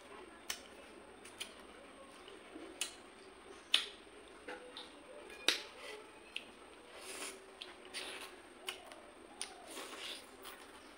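A person eating rice and fish curry by hand, chewing with wet mouth clicks and lip smacks at irregular intervals.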